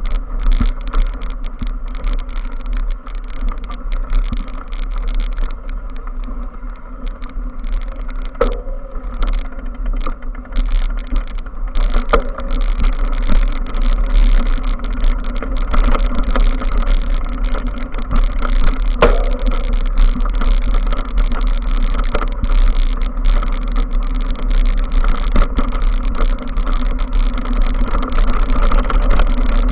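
Steady wind noise rumbling and buffeting on a small action camera's microphone, with a few sharp knocks scattered through it.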